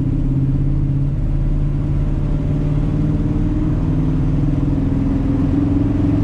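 Newly built engine running steadily at an even, fairly low speed, not revving, as it is broken in.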